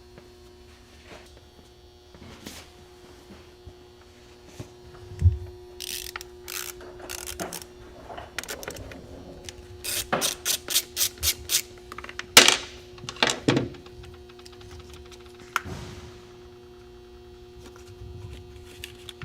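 Nylon zip ties being cinched tight by hand, clicking through their ratchets in short quick runs of sharp clicks, over a steady low hum.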